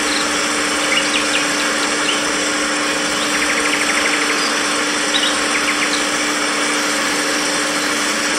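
Small electric motor and gearbox of a homemade toy tractor whining steadily as it drives through mud towing a loaded trailer. A few faint bird chirps come through in the background.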